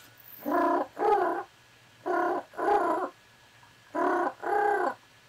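A man vocally imitating the Skype calling tone: three pairs of two-note 'boop boop' hums, evenly spaced.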